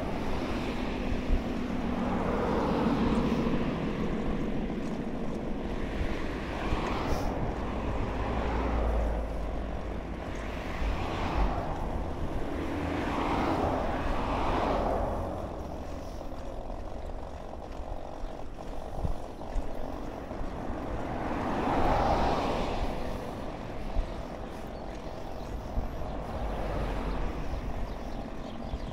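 Cars passing one after another on the road alongside, each swelling and fading away, over a low steady rumble.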